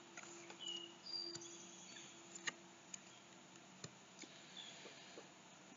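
Tarot cards being handled and laid down on a wooden table: faint scattered clicks and taps of cards, over a low steady hum, with a few short faint high chirps.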